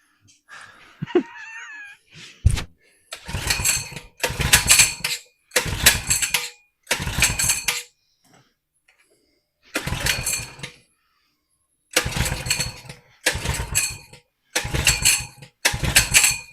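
Coleman 100cc minibike's small single-cylinder engine cranked on the pull starter about nine times, each pull a short burst of cranking that dies away without the engine catching and running, a sign that it is not getting fuel.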